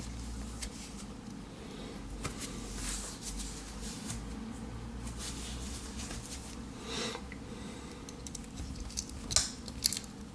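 Victorinox Tinker Swiss Army knife handled in the hands, with faint rubbing, then a quick cluster of sharp metal clicks near the end as its tools are worked open and shut.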